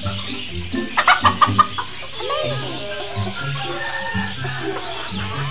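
Chickens clucking, with a quick run of loud clucks about a second in and high chirps repeating several times a second.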